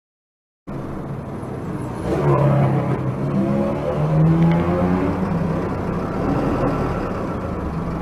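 Road traffic heard from inside a truck cab, starting suddenly just under a second in. From about two seconds in, an engine rises and falls in pitch as a motorcycle filters through the traffic past the truck.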